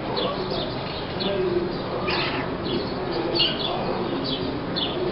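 Small birds chirping in short, quick falling notes, several a second, with low cooing underneath.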